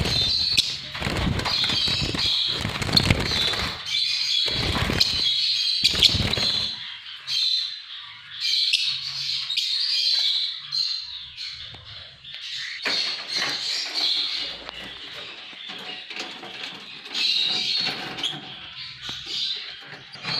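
A flock of small pet parrots chattering and chirping continuously, with low rustling thumps during the first six seconds or so.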